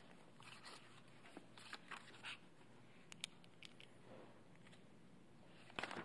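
Near silence in a quiet council chamber: faint room tone with scattered small clicks and paper rustles, a slightly louder cluster of them near the end.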